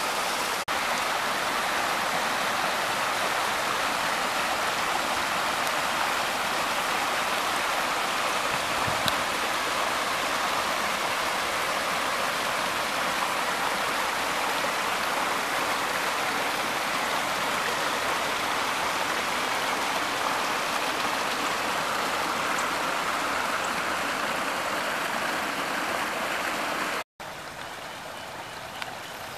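Rain-swollen creek rushing steadily over rocks in small cascades. Near the end the sound cuts out for an instant, then the rushing continues about ten decibels quieter.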